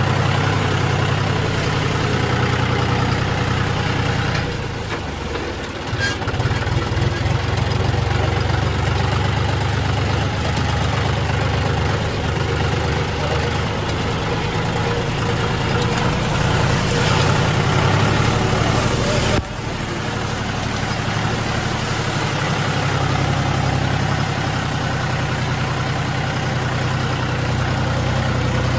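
John Deere tractor's diesel engine running steadily as the tractor drives along a muddy, rutted track. The sound dips briefly about five seconds in and changes abruptly about two-thirds of the way through.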